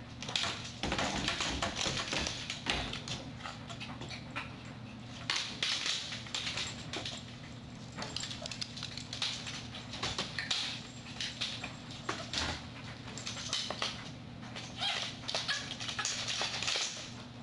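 Small dogs scrabbling at and clambering over a plastic lattice baby gate: claws clicking and scraping on the floor and the gate, and the gate rattling and clattering, in irregular clusters of sharp clicks.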